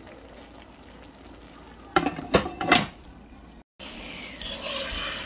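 Several sharp metal clanks of a spoon or lid against an aluminium cooking pot around two seconds in, then a metal spoon stirring thick squash curry in a pan with a light sizzle.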